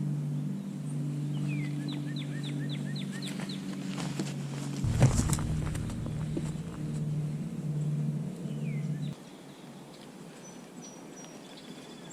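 A bird calling a quick run of repeated down-slurred notes about two seconds in, with fainter calls later, over a low steady hum of several held tones that cuts off suddenly about nine seconds in. A burst of low rumble, loudest around five seconds in, sits under it.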